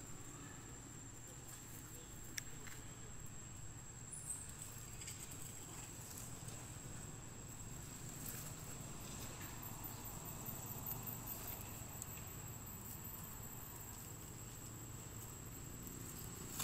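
Faint outdoor ambience: a steady, high-pitched insect drone throughout, over a low rumble, with a few soft clicks.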